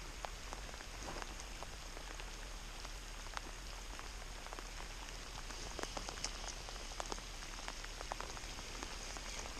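Steady light rain falling, an even hiss with many scattered individual drops ticking close by.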